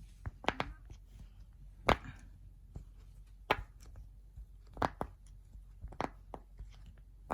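Silicone push pop bubble fidget toys being pressed, the bubbles popping with sharp, short clicks at an uneven pace, about one or two a second with some close together.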